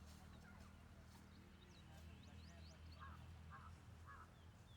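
Faint bird calls: short high chirps, then three short evenly spaced calls about half a second apart, over a low steady hum.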